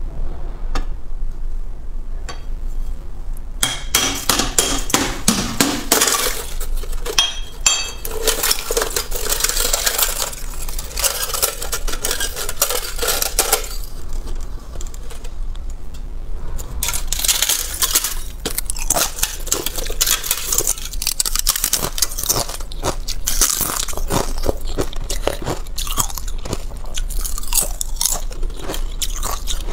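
Thin shell of balloon ice being broken apart by hand and bitten: a dense run of sharp cracks, crunches and clinks of ice, beginning about four seconds in.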